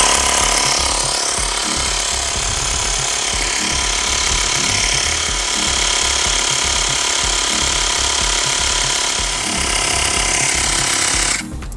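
Xiaomi portable electric air pump running steadily, its small piston compressor rattling as it pumps air into a car tyre through a hose on the valve. It cuts off suddenly near the end.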